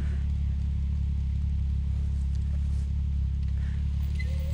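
Off-road vehicle engine idling steadily: a constant low drone with no revving.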